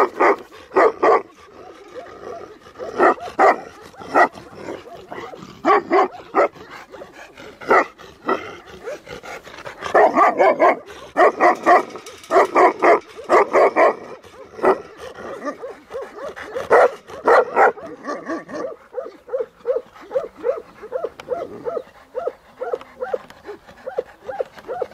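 Tibetan Mastiffs barking in repeated bursts of several barks each. After about eighteen seconds the barking turns quieter and more evenly spaced.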